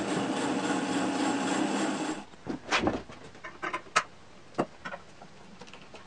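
A 3/4-horsepower bandsaw running and its blade cutting lengthwise through a log, a steady dense noise that stops abruptly about two seconds in. Then come scattered knocks and scrapes of a hand tool working on the log.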